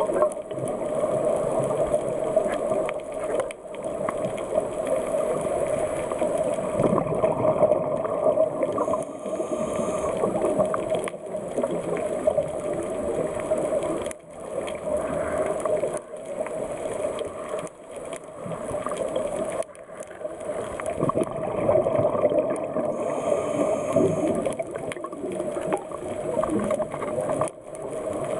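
Underwater ambience heard through a camera housing: a steady rush with crackling and gurgling that swells and dips every few seconds.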